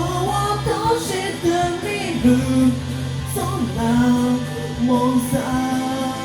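Pop-rock music: a sung melody over guitar and bass.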